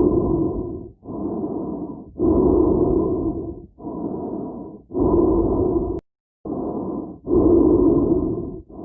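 Slow breathing inside a helmet, muffled and hollow-sounding, each breath in or out lasting about a second and alternating louder and softer, about four full breaths. About six seconds in, the sound cuts out completely for a moment.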